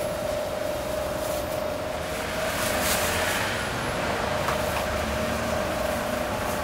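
Steady machine hum with a constant whine. About three seconds in, a thin plastic carrier bag rustles as a wrap is slipped into it.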